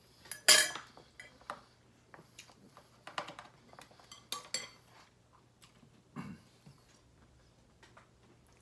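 Forks and knives clinking and scraping against plates and serving trays during a meal: a scatter of short, sharp clinks, the loudest about half a second in.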